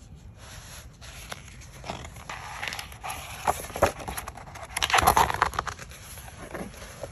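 A page of a large art book turned by hand: paper rustling and scraping with a couple of sharp ticks, loudest as the page sweeps over about five seconds in.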